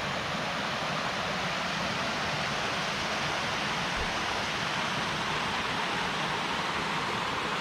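Steady, even rush of fast-flowing mountain water, a stream or cascade close by.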